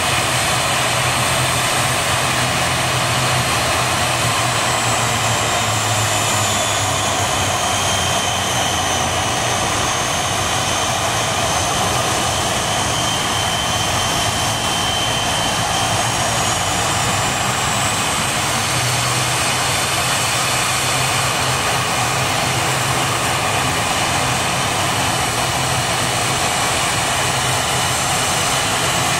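Airplane engines running with a steady roar and a high whine that slowly drops in pitch and then rises again.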